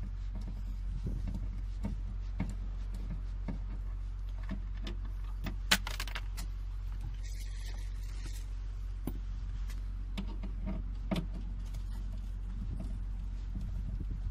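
Scattered small clicks and knocks of a screwdriver working out the screws that hold a car's interior trim panel, with a sharp click about six seconds in and another about eleven seconds in, over a steady low hum.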